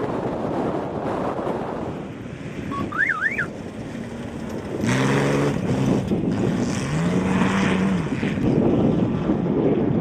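Off-road race vehicle's engine, getting louder about five seconds in, its pitch rising and falling, over wind buffeting the microphone.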